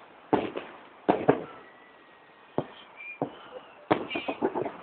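Fireworks salute going off: single booms a second or so apart, then a rapid run of crackling bangs near the end.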